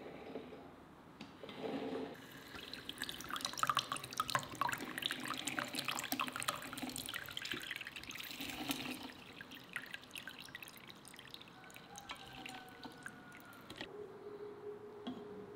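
Fresh orange juice streaming and dripping from a lever-arm citrus press into a plastic measuring jug, a busy trickle that eases off into sparser drips about two-thirds of the way through.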